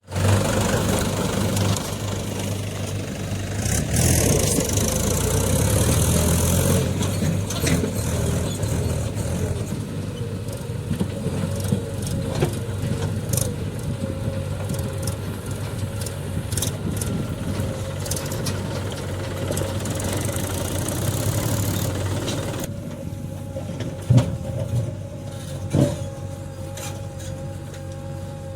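Heavy diesel engines of earthmoving machinery and tractors running steadily under load. Two sharp knocks come near the end.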